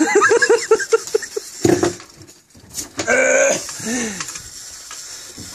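Excited men's voices without clear words: a quick run of short laughing or whooping calls, then a loud drawn-out shout with a wavering pitch about three seconds in.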